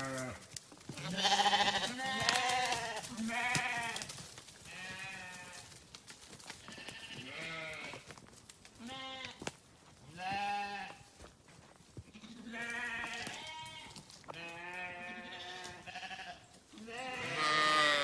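Sheep in a flock bleating over and over: about a dozen wavering bleats of differing pitch from several animals, some close together, the loudest near the start and just before the end.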